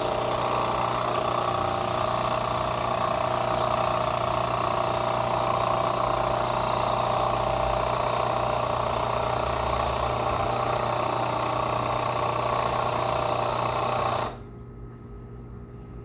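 Turmix Nespresso capsule machine's pump buzzing steadily as descaling solution is pushed through, then cutting off abruptly about 14 seconds in.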